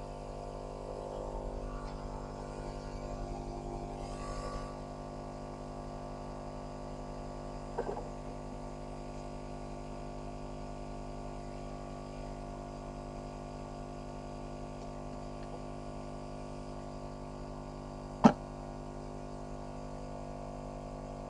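Maddox 12-volt portable tire-inflator compressor running steadily as it pumps up a tire, an even hum; one sharp click sounds near the end.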